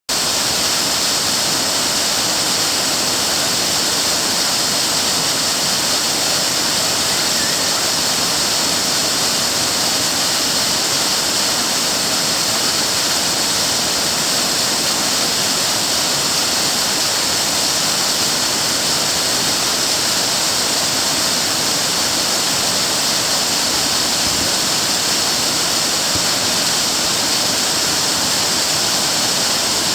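Nametsu Otaki waterfall: a loud, steady rush of falling water with a strong hiss, unchanging throughout.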